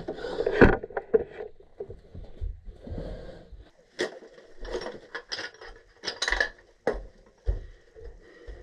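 Metal tools and fittings clinking and knocking irregularly as the gas valve and its piping are worked on by hand, with the loudest knock near the start.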